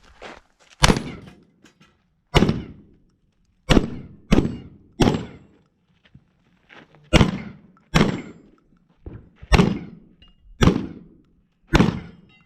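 Shotguns firing about ten shots at uneven intervals, some in quick pairs a little over half a second apart. Each shot has a short echoing tail.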